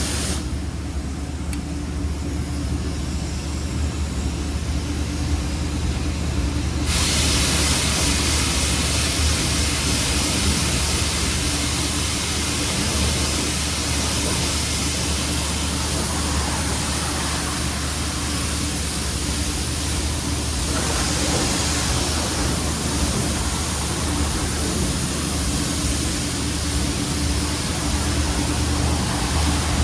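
Steady drone of a car on the move, heard from inside: a low engine and road hum under a broad rush of tyre and wind noise.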